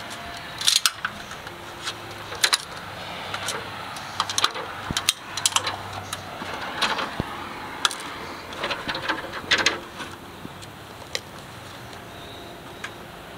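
Irregular knocks and clanks from someone climbing a ladder with metal rungs, as feet and hands strike the rungs and the ladder shifts. The knocks come in uneven clusters and thin out in the last few seconds. A low steady hum runs underneath.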